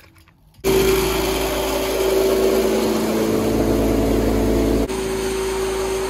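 An electric posho mill running as it grinds maize into flour: a loud, steady machine drone with a constant hum, starting abruptly under a second in.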